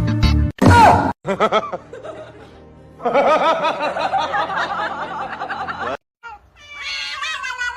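Music with a snickering laugh over it. About six and a half seconds in, a cat meows with a drawn-out call that falls in pitch.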